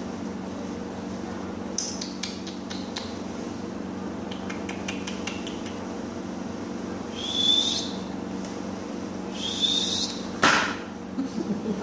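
A kitten playing on a tiled floor: runs of light clicks and taps over a steady low hum, two brief high squeaks near the middle, and a louder scuff near the end.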